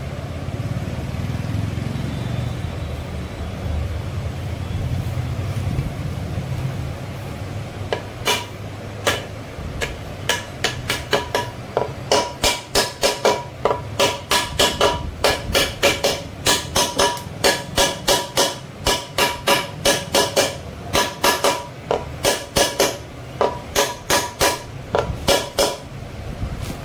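A plastic-faced mallet tapping a ball bearing into its seat in a Royal Enfield Bullet's aluminium crankcase, each blow giving a short metallic ring. The taps begin about eight seconds in, a few at first, then come steadily at about two to three a second.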